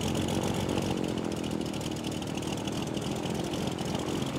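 A steady mechanical engine-like running sound with a fast, even rattle.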